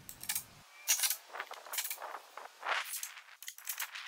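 Small metal screws and hardware clinking and clicking in a hand as a screw is set onto the bit of a cordless drill, about a dozen light, irregular clicks.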